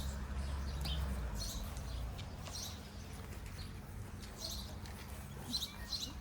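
Small birds chirping now and then, with a low rumble that fades out about two seconds in.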